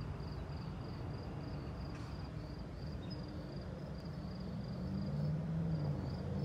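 Outdoor ambience: an insect chirping in a steady rhythm of a few short, high pulses a second over a low rumble, with a low steady hum building near the end.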